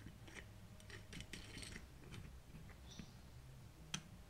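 Faint metallic clicks and light scraping as a steel bearing separator is handled and fitted around a bearing race on a shaft, with one sharper click near the end.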